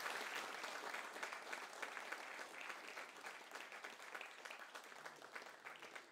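Audience applause, many hands clapping, slowly dying away.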